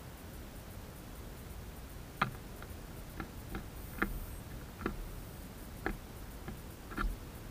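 A tit landing on and moving about a wooden bird feeder: about nine sharp, irregular taps and knocks of its claws and beak on the wood, starting about two seconds in.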